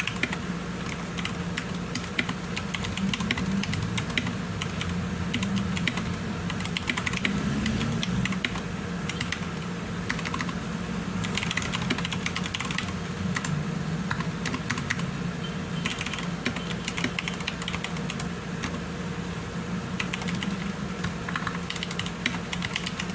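Typing on an Anne Pro 2 60% mechanical keyboard with Cherry MX Silver linear switches: a continuous, irregular run of keystroke clicks.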